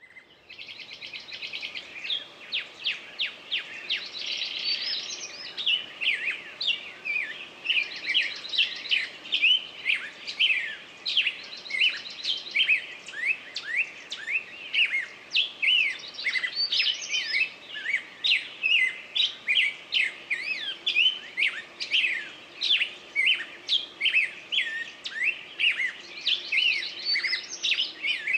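Songbirds singing: a dense, continuous run of quick chirps and whistled notes, with buzzy trills now and then.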